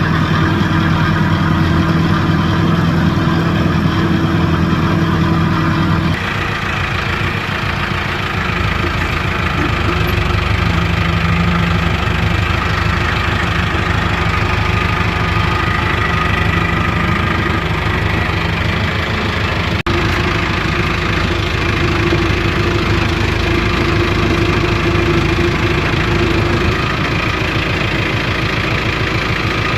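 Vehicle engine running steadily, its tone shifting slightly about six seconds in.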